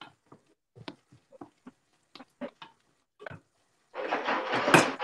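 Thick tomato-and-bread pappa being stirred in a stainless steel pot while olive oil is worked in: a string of soft, irregular taps and squelches, then a louder rush of noise lasting about a second near the end.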